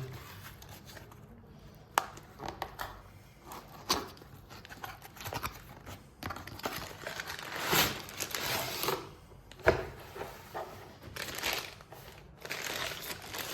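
Packaging being opened by hand: a cardboard box and its plastic wrapping rustling and crinkling, with scattered sharp clicks and knocks as the box is handled.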